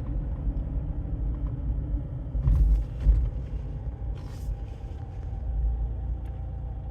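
Car driving, heard from inside the cabin: a steady low road and engine rumble, with two short sharper noises about two and a half and four seconds in.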